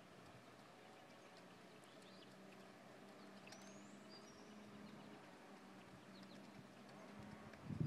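Near silence: faint, distant hoofbeats of a horse cantering on arena footing, with a few faint bird chirps and a low steady hum; the hoofbeats grow louder right at the end as the horse comes nearer.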